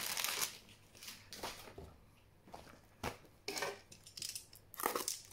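Magic: The Gathering trading cards and their packaging being handled on a wooden table: a handful of short, spaced-out rustles and taps.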